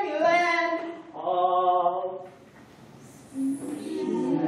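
Chanted singing ending on two held notes: the first bends in pitch, the second holds steady for about a second. A short lull follows, and the room's noise rises near the end.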